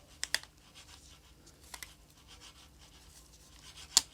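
Small sharp clicks and taps of a tool working on a smartphone's internal parts during disassembly: a quick pair of clicks just after the start, a fainter pair a little later, and one louder click near the end.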